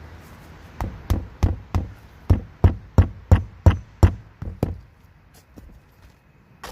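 Hammer driving nails into roll roofing: about a dozen sharp strikes at roughly three a second, stopping about two-thirds of the way through.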